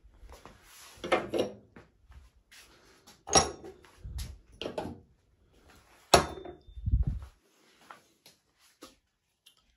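Metal gas-hob pan supports being lifted off and set down on a worktop: three sharp clanks, about one, three and a half and six seconds in, with lighter knocks between and a short low scrape soon after the last.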